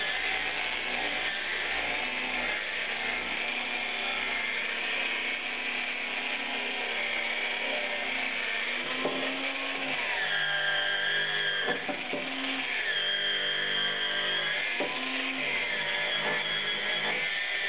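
Angle grinder with an abrasive disc running and grinding against a metal handlebar tube, a steady grinding noise with the motor's whine shifting in pitch in the middle.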